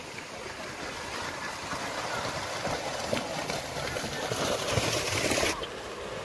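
Pair of racing bulls galloping through a flooded rice paddy, their hooves and the plough-like sledge splashing water and mud. The splashing grows louder as they approach and stops abruptly near the end.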